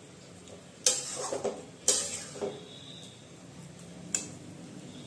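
A spatula scrapes and knocks against an aluminium kadai while thick curry is stirred: three sharp knocks, the first two a second apart with scraping after each, the last near the end. Under them is a faint sizzle from the curry cooking in the pan.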